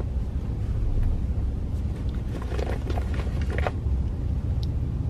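Road noise inside a moving car's cabin: a steady low rumble with a hiss over it, and a few faint rustles about halfway through.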